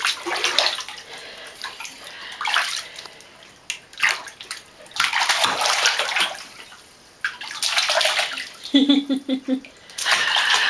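A baby splashing bathwater with her hands in a tub, in several bursts of splashing separated by quieter gaps. About nine seconds in comes a short run of baby giggles.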